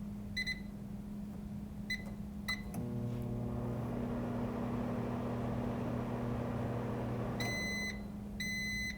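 Microwave oven keypad beeping three times in short, high beeps, then the oven's steady hum running for about five seconds. The hum stops and long beeps follow, about one a second.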